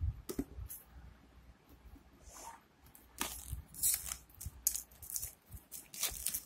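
Cardboard smartphone box handled on a tiled floor: scattered taps, scrapes and rustles, busier and louder in the second half as the box is pulled open.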